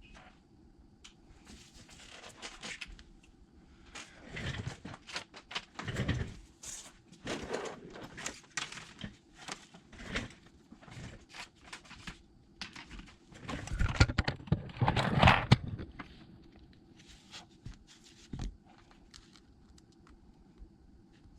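Hand-handling noises from repair work on an iPad: scattered small clicks, taps and scrapes of tools and parts, with some crinkling. The loudest run of handling comes about fourteen to sixteen seconds in.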